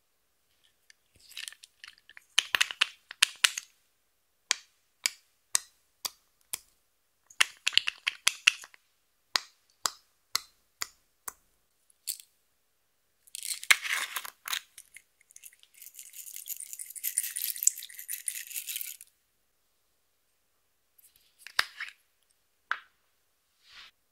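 Small plastic cosmetic containers handled and opened: caps, lids and a dropper bottle clicking and tapping in quick clusters, with about three seconds of steadier scratchy rattling a little past the middle.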